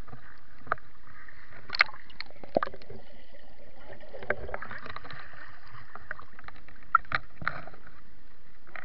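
Lake water sloshing and splashing against a camera held at the surface, with sharp splashes now and then from people moving in the water close by. The camera dips briefly under the surface around the middle.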